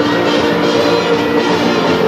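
Loud music with steady held notes.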